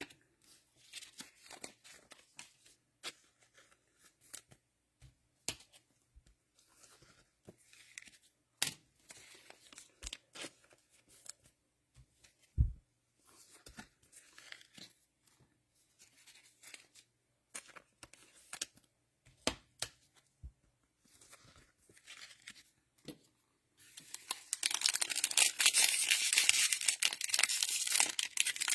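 Trading cards being handled, with scattered light clicks and rustles. Near the end comes continuous loud crinkling and tearing as a cellophane-wrapped card pack is ripped open.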